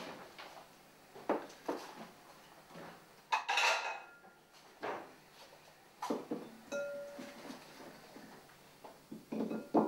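Kitchen handling sounds: bowls, a wicker basket and fruit being set down and moved on a wooden table, a series of irregular knocks and clinks. The loudest clatter comes about three and a half seconds in, and a bowl rings briefly after a knock about two-thirds of the way through.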